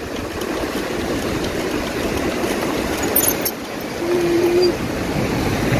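Surf breaking on the shore mixed with wind rushing over the microphone, a steady noisy wash, with a short steady tone about four seconds in.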